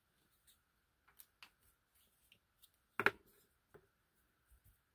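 Light clicks and taps of a small plastic ink pad being handled and set down on a desk, with one sharper click about three seconds in.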